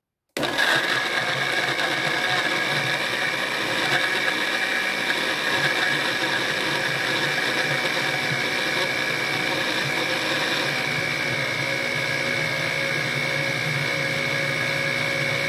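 Countertop blender switched on about half a second in, its motor running steadily at high speed with a high whine as it grinds sliced fresh ginger and soju into a smooth purée.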